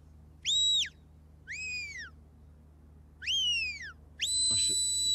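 Shepherd's whistle blown by a sheepdog handler as commands to his working dog: four separate high notes. The first is short and steady, the second rises and falls, the third is a falling glide, and the fourth is a long steady note that drops off at its end.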